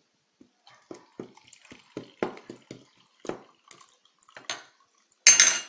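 Water being poured out to mix plaster of Paris, a run of short, irregular glugs. Near the end comes a brief, loud, noisy burst.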